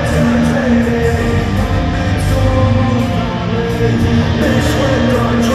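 Loud live rock music played over an arena sound system, with electric guitar, heard from the stands in a large reverberant hall.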